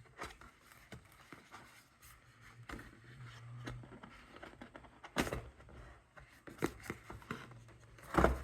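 Plastic Blu-ray cases and cardboard packaging being handled: scattered soft scrapes and sharp clicks, with the clearest click about five seconds in and a few more near the end.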